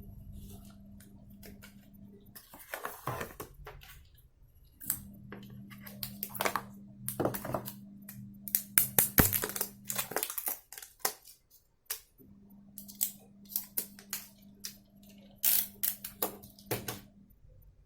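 Packaging being handled: plastic and paper crinkling and rustling, with scattered clicks and taps. A low steady hum runs underneath and drops out for a couple of seconds at times.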